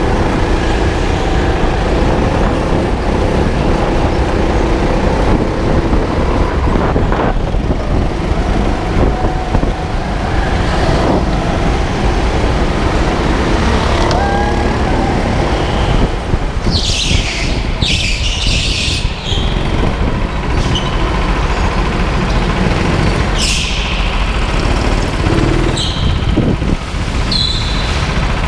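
Go-kart running flat out round an indoor track, heard onboard as a steady loud rumble of motor and rushing air. Several short bursts of high hiss come about halfway through. Near the end the kart slows into the pit lane.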